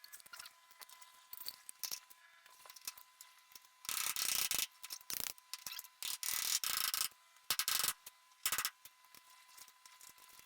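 Hand socket ratchet clicking in a few short bursts, the first about four seconds in and three more between about six and nine seconds.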